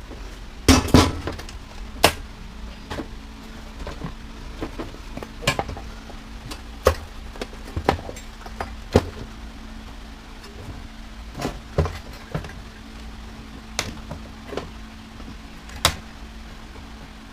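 Irregular clanks and clinks of metal parts and panels being handled and pulled loose while a washer/dryer combo is dismantled for scrap, the loudest knocks about a second in. A faint steady hum runs underneath.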